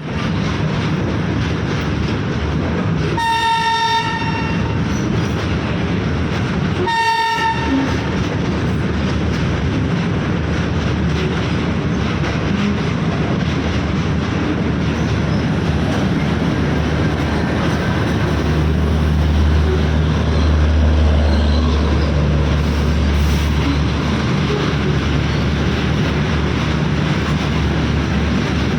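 Twin Alco diesel locomotives sounding their horns in two blasts of about a second each, about four seconds apart, over the steady rumble and rattle of the moving train. From about 18 seconds in, a deep low drone swells up and holds.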